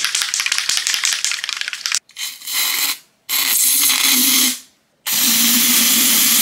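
An aerosol can of Giggle String (silly string) shaken hard, its mixing ball rattling quickly for about two seconds. Then it is sprayed in three bursts of a second or so each, a hiss with a low hum under it as the string shoots from the nozzle.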